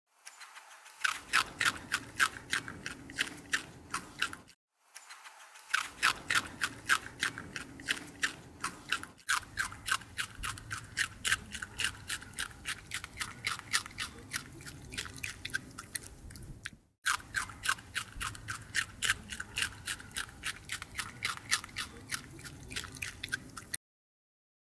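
Rabbit chewing: a fast, even run of crunchy bites, about three a second, broken by short gaps a few times.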